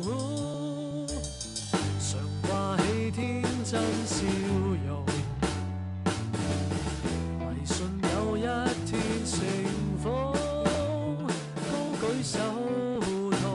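Drum kit played along to an instrumental passage of a pop song: snare, bass drum and cymbal hits over a backing track with a gliding lead melody and bass. The drumming picks up about two seconds in.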